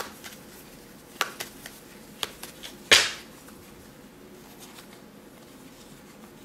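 Tarot cards being handled and drawn from the deck: a few light clicks and snaps, then one louder, brief rustle of cards about three seconds in.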